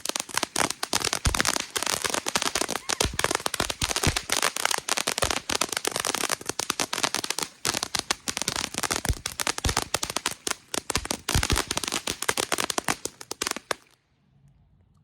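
Firecrackers going off in a rapid, continuous stream of sharp pops and cracks, several a second, that stops suddenly about fourteen seconds in.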